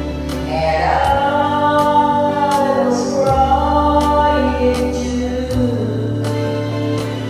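Karaoke singing: a voice holding long, gliding sung notes over a backing track with sustained bass and a slow, steady beat.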